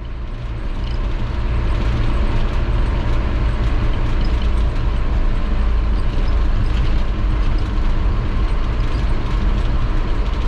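Toyota Bandeirante 4x4 motorhome driving, heard from inside, with a steady low rumble and a constant rattle and clatter of the body and fittings. It gets louder over the first couple of seconds, then holds steady.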